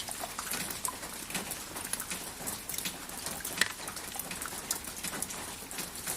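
Steady rain, with many separate drops tapping and pattering on a surface over a constant hiss; one drop strikes more sharply about three and a half seconds in.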